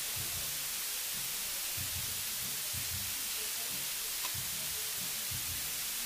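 Steady hiss of background noise, with faint irregular low rumbles beneath it and one small click about four seconds in.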